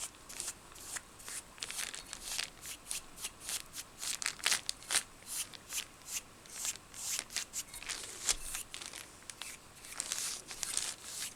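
Paintbrush dabbing and brushing paint onto a bottle's dried, glue-stiffened fabric covering: quick, irregular scratchy strokes, several a second.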